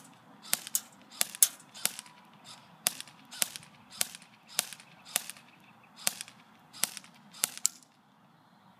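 Electric airsoft M4 rifle firing a rapid string of single shots, about a dozen sharp cracks at roughly one every half second to second, several in close pairs, stopping about a second before the end.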